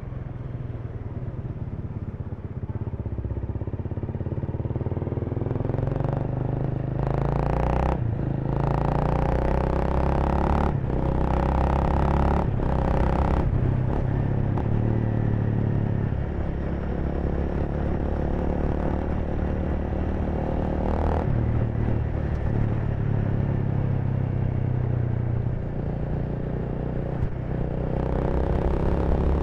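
Honda Rebel 300's single-cylinder engine running under way, its note rising and falling with throttle and gear changes, mixed with the noise of passing street traffic.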